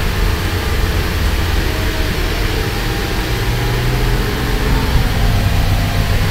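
City bus engine and road noise heard from inside the cabin while driving: a steady low rumble with a faint hum above it.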